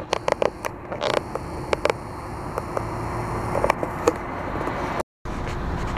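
Low, steady road and engine rumble heard from inside a moving car's cabin, with scattered small clicks and knocks. The sound drops out briefly about five seconds in.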